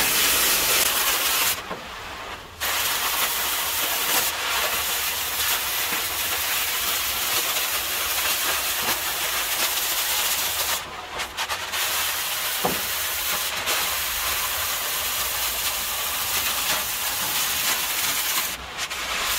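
Cutting torch hissing steadily as it cuts through the corrugated steel wall of a shipping container. The hiss dips briefly about two seconds in, again around eleven seconds, and near the end.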